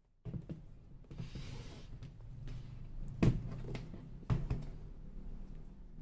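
Aluminium microphone carry case being handled and turned over in the hands: a soft scrape against its surface about a second in, small clicks, then two sharp knocks about a second apart near the middle.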